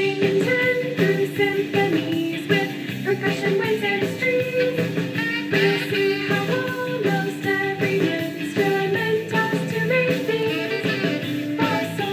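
A surf-rock style song: guitar and band with voices singing.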